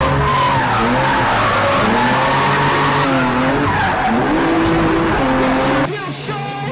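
Drift car engine revving hard, its pitch sweeping up and down, with tyres squealing, heard from inside the cabin. About 6 s in the sound cuts suddenly to quieter music.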